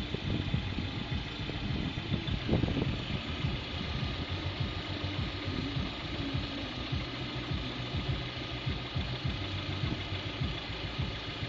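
Lada Priora's 21126 1.6-litre 16-valve engine idling warm, with a knock that comes and goes. The piston set is freshly replaced, and the owner suspects the camshafts.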